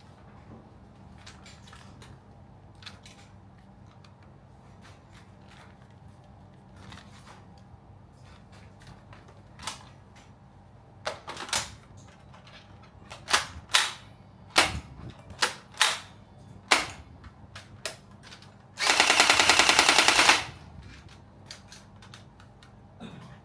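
HK416-replica gel blaster firing: faint clicks of handling, then about ten single shots at uneven intervals, then a full-auto burst of about a second and a half.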